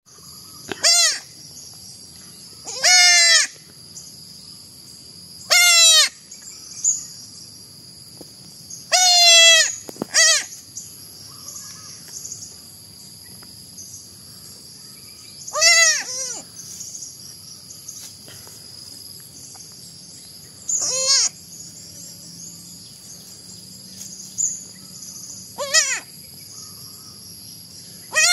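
Baby goats (kids) bleating: about ten short, high-pitched bleats at irregular intervals, a few of them longer and wavering. A steady high-pitched hum runs underneath.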